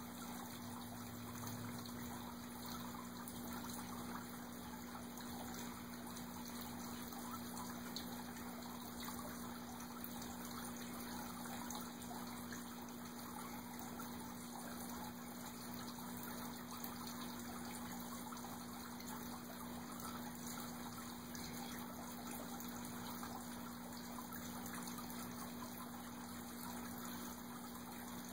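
Steady trickle of running water, with a low steady hum underneath.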